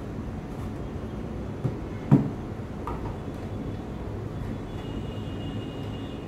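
A dull knock of the wooden temple cabinet being handled, about two seconds in, with a smaller knock just before it, over a steady low hum.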